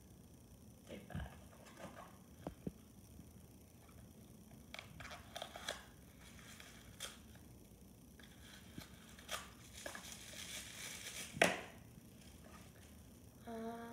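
Paper and thin cardboard rustling and crinkling as a small advent-calendar box is opened and tissue paper is pulled out, with scattered small clicks and a busier stretch of crinkling from about eight to twelve seconds in. A brief voice-like tone comes just before the end.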